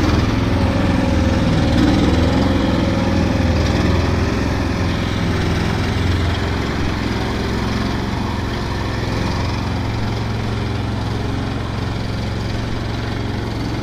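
Engine of a homemade karakat, an all-terrain vehicle on huge low-pressure tyres, running steadily as it drives, a little louder over the first few seconds.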